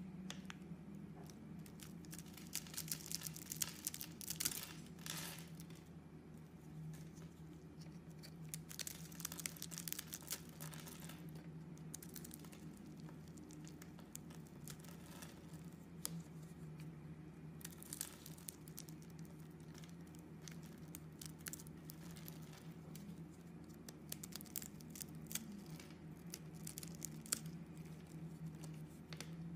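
A knife blade cutting and crumbling a bar of soap scored in a wavy pattern: a stream of small crisp crackles and scrapes as the pieces break away, coming in denser spells. A faint low hum runs underneath.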